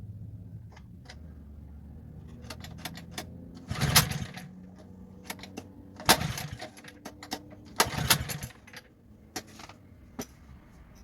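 Clicking and knocking of hard objects being handled, with three loud scraping knocks about two seconds apart, over a low hum that fades about a second in.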